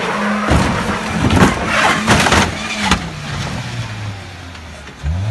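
A vehicle engine running, its pitch rising and falling, with a loud noisy stretch about half a second in that ends in a sharp knock near three seconds; afterwards the engine runs lower and steadier and rises again near the end.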